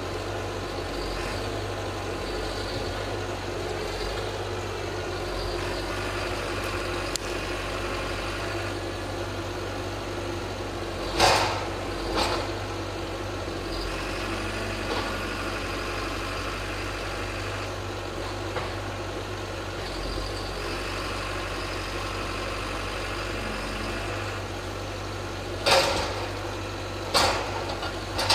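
John Deere 810E forwarder's diesel engine running steadily, with a hydraulic whine that rises and falls as its loader crane swings and works. Two pairs of sharp clunks come about a third of the way in and again near the end, as logs knock into the load bunk.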